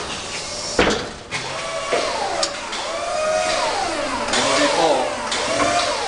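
A 40-horsepower Durovac PowerLift industrial vacuum running, drawing wet activated carbon through its 4-inch hose: a steady rushing hiss with tones that swoop up and down in pitch. Sharp knocks come through it, the loudest about a second in.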